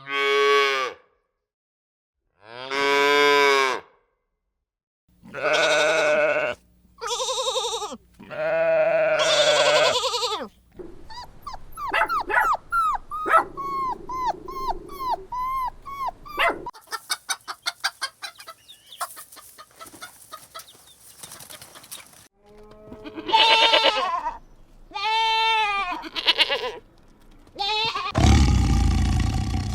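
Livestock bleating: a series of separate calls of about a second each, followed by a run of rapid short chirping calls and a stretch of clicking and rustling. More bleats follow, and a steady engine-like rumble begins near the end.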